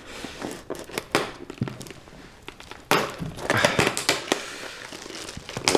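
Cardboard shipping box being opened by hand: scattered cracks and clicks of cardboard and tape, then a louder stretch of crackling and rustling about three seconds in.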